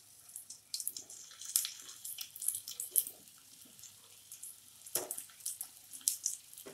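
Stuffed bitter gourds sizzling in hot oil in a shallow frying pan, with irregular crackles as more gourds are laid in one by one. A soft knock about five seconds in as a gourd goes down into the pan.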